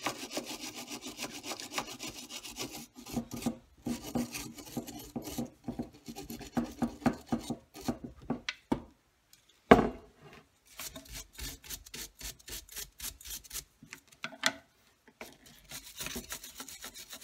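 Small hand wire brush scrubbing back and forth in quick rasping strokes into the cracks of an old plastic steering wheel hub, cleaning them out before they are filled with epoxy, with short pauses between runs of strokes. A single sharp knock about ten seconds in.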